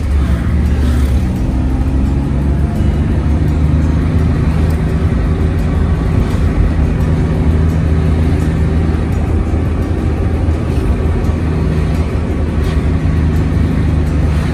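Steady engine and road noise of a vehicle driving along a town road, with a constant low rumble.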